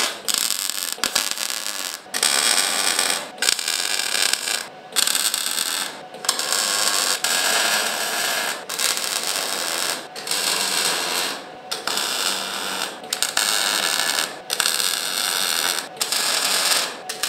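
A wire-feed welder tack-welding steel sled rails: about a dozen crackling, sizzling arc welds, each a second or so long, with short breaks between them as the welder stops and moves to the next spot.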